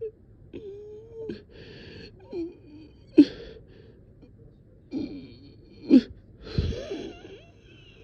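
Laboured breathing of a person short of breath: wheezy, moaning breaths with a drawn-out voiced moan early on and several sharp gasps, the loudest about three and six seconds in.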